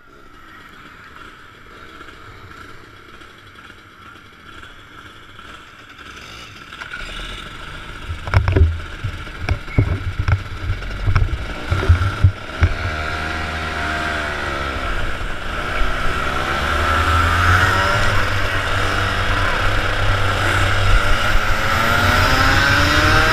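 Rotax Max 125cc two-stroke kart engines running, quiet and steady at first, then the onboard kart pulling away with a few sharp thumps about a third of the way in. From about halfway its engine note rises and falls and grows louder as it accelerates through the gears-free revs onto the track.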